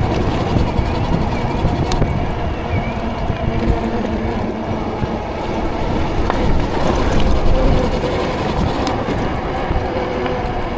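Wind rushing over the microphone, with road noise, while a Ridstar Q20 electric bike is ridden at speed. The noise is steady, with faint steady tones running under it.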